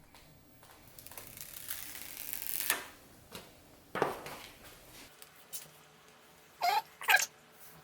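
Vinyl decal being peeled from its backing sheet and handled: a rustling peel that grows louder over a couple of seconds, then a sharp click about four seconds in and a few light taps, with two short sounds near the end.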